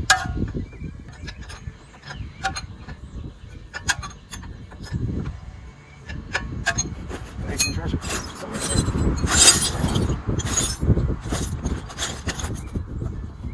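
Hand tools working on the truck's front suspension bolts: scattered metal clicks and clinks, then a denser run of rattling, knocking strokes in the second half.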